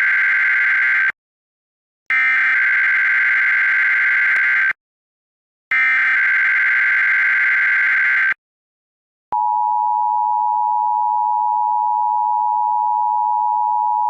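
Emergency Alert System SAME header: the end of one digital data burst, then two more bursts of about two and a half seconds each with a second's silence between them. After a short pause, the steady two-tone EAS attention signal starts about nine seconds in. This is the header and alert tone that open an EAS required monthly test.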